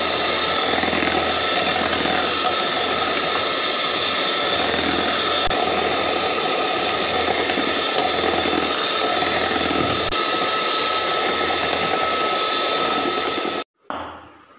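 Electric hand mixer running steadily at speed, its twin beaters whipping cream, powdered sugar and cocoa powder into chocolate whipped cream; a steady motor whine that cuts off suddenly near the end.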